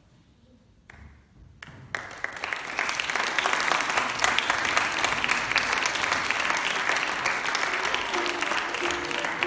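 Theatre audience applauding at the end of a show: a few scattered claps about a second in, swelling into full, steady applause within another second. Music starts faintly under the applause near the end.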